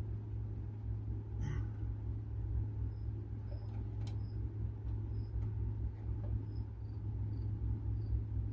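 A cricket chirping at a steady pace, about two chirps a second, over a steady low hum, with a few light clicks.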